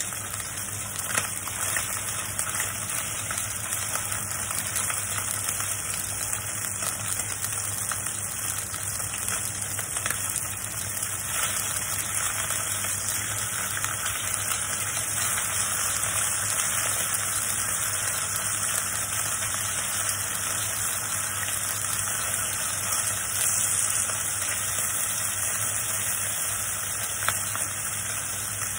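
Pork pieces sizzling steadily in hot oil in a stainless steel wok, with a few sharp taps as chopsticks turn the meat. A steady low hum runs underneath.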